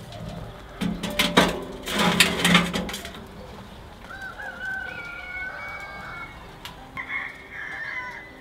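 Metal clanks and scrapes as a steel charcoal chimney starter is set down on a smoker's cast grill grate, a cluster of sharp knocks lasting about two seconds. A rooster then crows in the background with long held, wavering calls.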